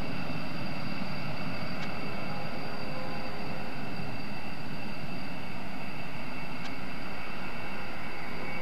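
Rockwell B-1B Lancer's four General Electric F101 turbofans running at taxi power: a steady jet rush with a thin, high whine over it.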